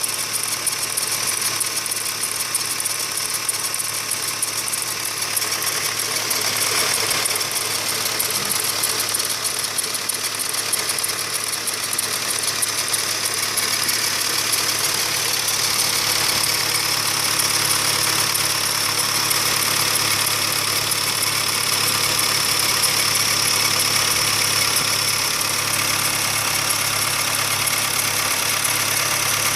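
Hyundai Sonata NF's 2.4-litre inline-four idling steadily, with a fast, even ticking rattle over the engine note. This is the extraneous noise from the engine bay that the owner hears in the mornings.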